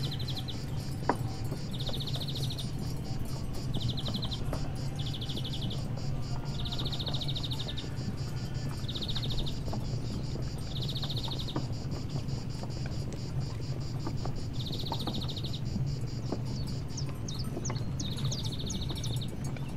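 Insects trilling in short bouts, each about half a second to a second long, repeated nine times at uneven gaps. A continuous fast, high ticking and a steady low hum run underneath.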